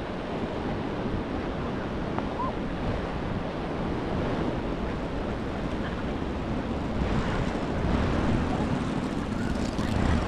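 Surf washing onto a sandy beach with wind on the microphone: a steady rushing noise that grows somewhat louder in the last few seconds.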